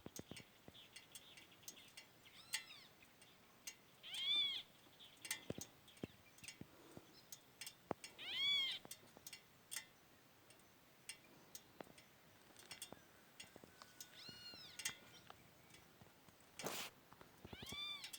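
A cat meowing about five times, each meow rising then falling in pitch, with scattered faint clicks in between.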